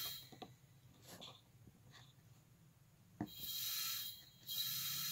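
Nitrogen gas hissing into a truck's A/C lines through a manifold gauge set during a pressure test, in two bursts of about a second each: one right after a sharp click a little over three seconds in, and one near the end. Faint ticks between the bursts.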